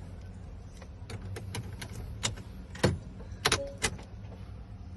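Car key fobs clicking and knocking as they are handled: a string of about ten sharp plastic clicks, the loudest a little past the middle, over a low steady hum.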